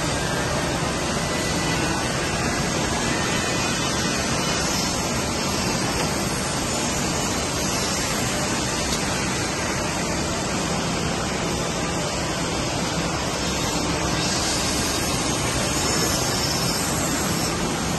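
Steady hiss and hum of woodworking factory machinery running, even throughout with no distinct knocks or clicks.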